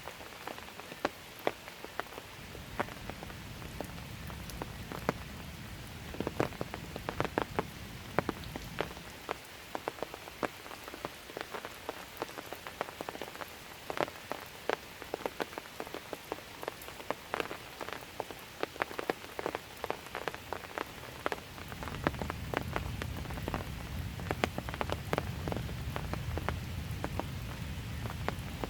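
Steady, gentle rain, with a constant hiss and many sharp ticks of drops striking close by. A low rumble sits underneath at the start and returns about three-quarters of the way in.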